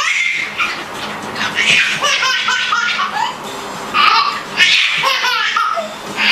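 A baby laughing hard in repeated bursts of giggles.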